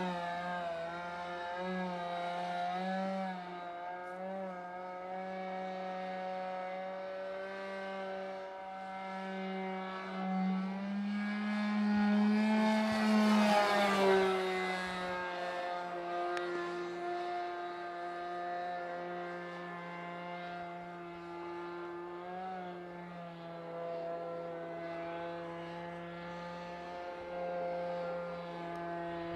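Model-airplane nitro engine of a Hangar 9 Twist 40 running in flight, its pitch wavering a little with throttle and manoeuvres. About halfway through it grows louder and its pitch drops as the plane passes close by.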